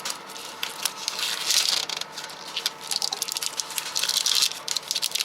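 Irregular rustling, scraping and clicks of hands handling a loose air temperature sensor and its wire, tucking them into a truck bumper.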